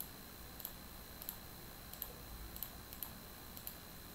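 Computer mouse clicking as nodes are picked one after another: light, sharp clicks at an even pace of about one and a half a second, over a faint steady high-pitched whine.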